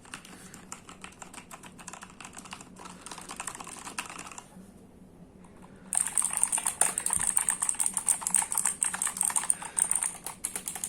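Rapid typing on a Gigabyte Force K81 full-size mechanical keyboard with linear Kailh Red switches: a dense patter of keystrokes with no click. It pauses briefly about halfway, then resumes faster and louder.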